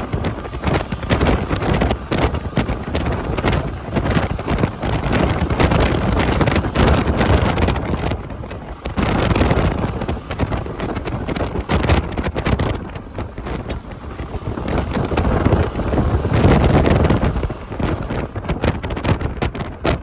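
A group of people making the sound of rain with their hands, as in the rainmaker game: a dense patter of finger snaps, claps and rubbing that swells and fades in waves.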